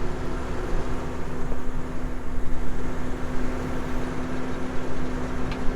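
Engine running steadily at idle: a constant hum with a low rumble beneath it.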